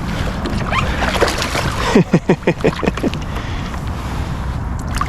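A hooked bass splashing and thrashing at the water's surface in a quick flurry, about two seconds in and lasting about a second, over a steady low rumble of wind and water on the microphone.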